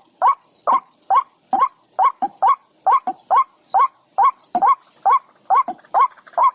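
Repeated short, sharp animal calls, about three a second, each rising quickly in pitch. A faint high steady tone runs under them for the first half.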